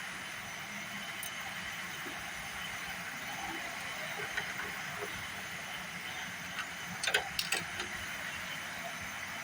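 Steady hissing background noise, with a few light clicks or taps about seven seconds in.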